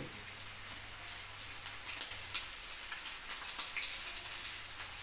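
Meat sizzling on an electric grill plate, a steady hiss with a few faint clicks as metal tongs turn the pieces.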